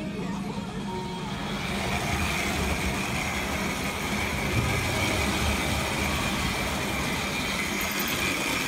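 OO gauge model train running along the track: a steady electric-motor whine with the rumble of wheels on the rails, the whine setting in about two seconds in.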